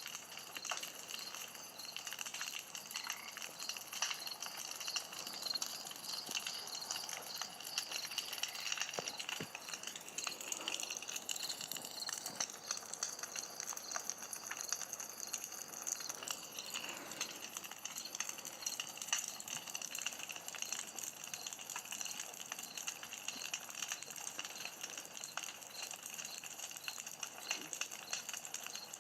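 Campfire crackling, with many small irregular pops and snaps, over a steady high-pitched pulsing chirr.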